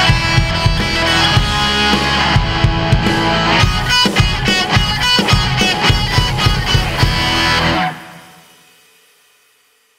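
Rock instrumental walk-on theme with guitar and a steady drum beat, ending suddenly about eight seconds in, its last sound dying away over the next two seconds.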